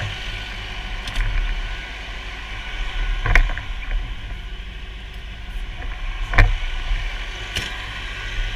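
Fire engine's engine running steadily, with several sharp knocks and clunks from handling in and around the cab; the two loudest come about three and six seconds in.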